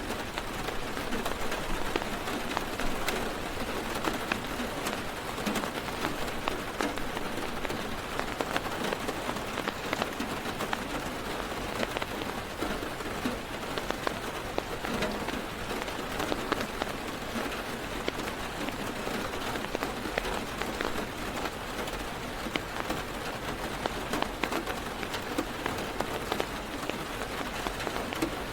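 Heavy rain falling on a car's roof and windows, heard from inside the car: a steady, dense hiss made up of many small, separate drop hits.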